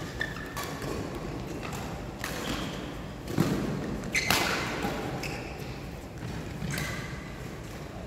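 Badminton rally: several sharp racket strikes on the shuttlecock, the loudest two close together about three and a half and four seconds in, with footfalls and short shoe squeaks on the court floor, echoing in a large hall.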